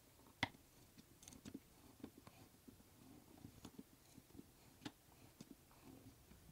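Hex key driving threaded inserts into a hardwood board: faint scraping and creaking of the threads cutting into the wood, with scattered sharp metallic clicks, the loudest about half a second in and another near five seconds.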